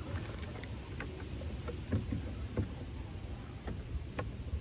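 Scattered faint clicks and light knocks of a replacement side mirror being lined up on its bolts and handled against the car door, over a steady low rumble.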